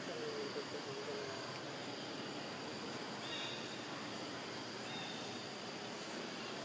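Steady outdoor background hiss, with a faint wavering call about half a second in and a few short high chirps later on.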